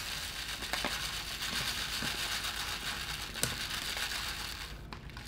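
Dry rice grains being poured out to be weighed, a steady grainy hiss with a few light clicks that drops away shortly before the end.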